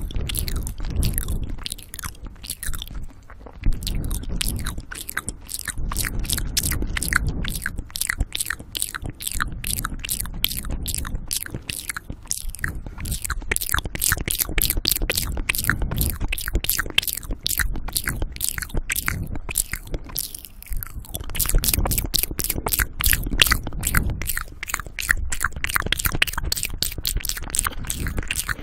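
Close-miked wet mouth sounds: rapid lip smacks and tongue clicks, several a second, over heavy breathing into the microphone, with a couple of short lulls.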